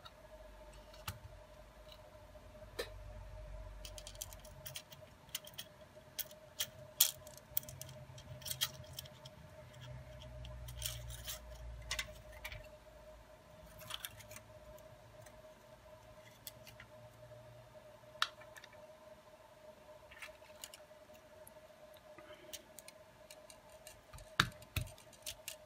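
Scattered light clicks and taps from a smartphone's display assembly and plastic housing being handled and set down on a rubber work mat, with a few sharper clicks near the end, over a faint steady hum.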